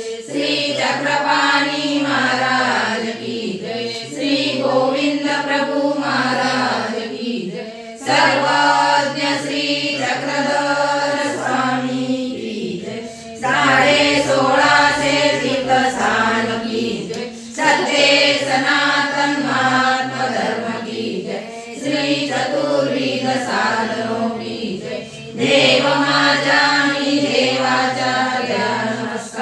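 A group of voices singing a devotional chant together, in repeated phrases that each begin strongly every four to five seconds.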